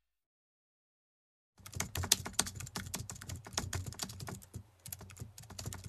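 Keyboard typing sound effect: rapid, irregular key clicks. It starts about a second and a half in, after a moment of silence.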